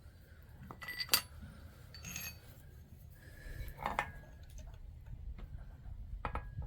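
Four light metal clinks at irregular intervals, each ringing briefly; the one about a second in is the loudest.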